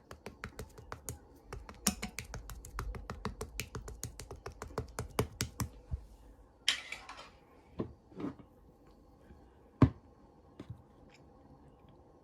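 Fast run of light, sharp clicks or taps, about five a second for six seconds. Then a brief rustle, two dull knocks and one loud thump near the end.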